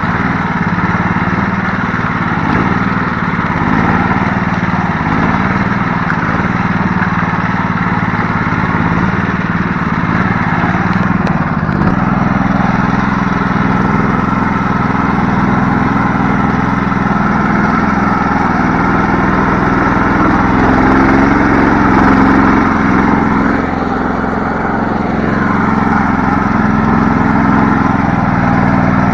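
Small engine of a homemade karakat all-terrain vehicle running steadily, its note changing slightly about twelve seconds in.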